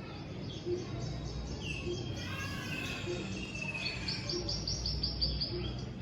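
Birds singing: slurred whistled notes about two seconds in, then a quick run of high repeated chirps about four seconds in.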